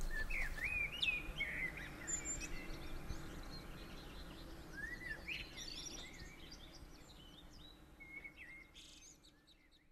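Birds chirping over faint background ambience, fading out gradually until it dies away near the end.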